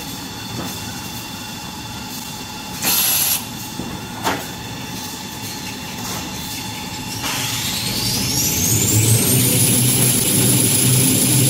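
Toilet paper and kitchen towel rewinding line running, with a short loud hiss about three seconds in and a smaller one a second later. From about seven seconds a high whine rises steadily in pitch and levels off, while the low machine rumble grows.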